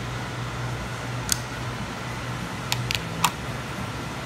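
A few sharp clicks as a grey screwdriver bit set case is picked up and handled, the last click the loudest, over a steady low hum.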